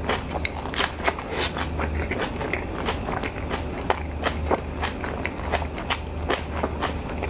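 Close-up chewing of crisp fresh napa cabbage kimchi: a continuous run of irregular crunches, several a second.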